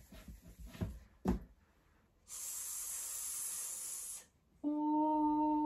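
A woman's voice stretching out the 's' of 'swim' as a long, steady hiss of about two seconds, then holding the next sound of the word on one steady pitch. A few light marker taps on the whiteboard come first.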